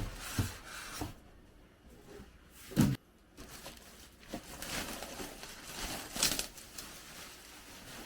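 Cardboard and plastic packaging rustling and crinkling as a PC case is lifted out of its box, with a single thump about three seconds in.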